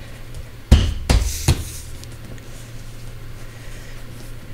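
Three dull knocks in quick succession about a second in: a hand pressing and tapping the Tesla Model 3's rubber door-opening weather strip back onto its flange over the interior trim, with a low steady hum underneath.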